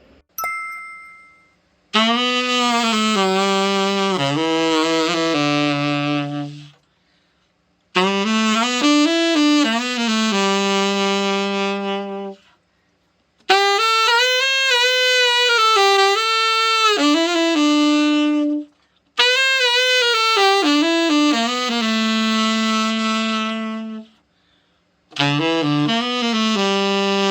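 Selmer Mark VII tenor saxophone, freshly overhauled, played in five short melodic phrases with brief pauses between them, ending on held low notes: a play test of the repaired horn.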